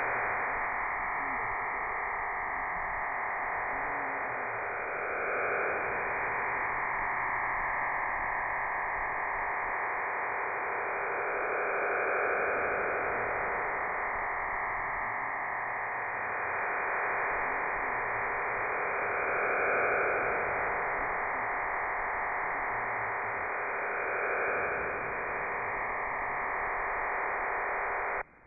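Digital data transmission from the HM01 Cuban numbers station heard over a shortwave receiver in AM: a dense, even hiss-like modem signal that swells slightly every few seconds and cuts off abruptly near the end.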